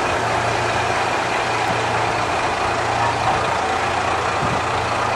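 Steady low hum of an idling diesel engine under an even rushing noise.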